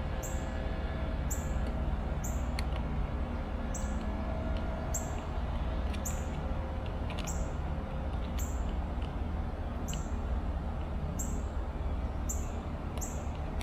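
A bird chirping repeatedly, short high chirps coming about once or twice a second, over a steady low rumble, with a few faint clicks.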